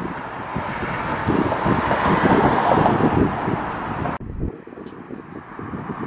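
Road traffic passing on the lane beside the walkway, swelling to its loudest two to three seconds in, with wind buffeting the microphone. The traffic noise cuts off abruptly a little after four seconds.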